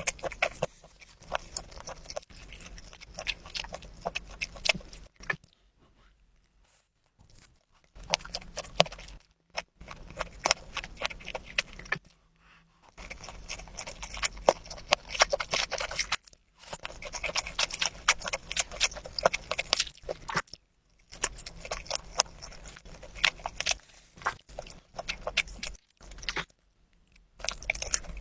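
Close-miked chewing and mouth sounds of someone eating ramyun and Chapagetti noodles with gimbap: wet, clicky eating noises in several runs, broken by short silent gaps.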